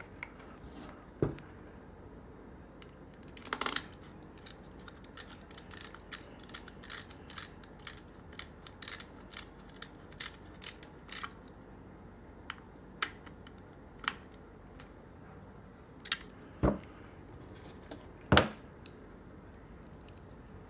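Small metal clicks and taps as a screw is turned in with a hand hex key, quickly repeated for several seconds. A few louder knocks follow near the end.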